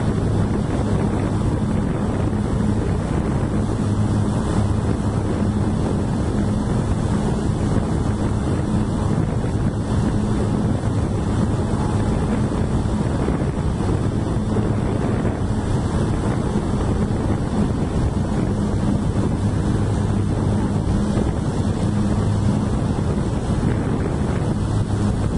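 Steady wind buffeting the microphone of a camera moving along a road, over a constant low engine drone and road noise from the Scania P420 heavy-haul truck travelling just ahead.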